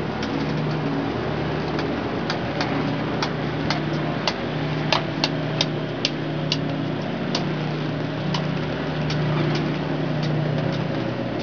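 A steady low mechanical hum under a haze of noise, with irregular sharp clicks and ticks that come thickest in the middle.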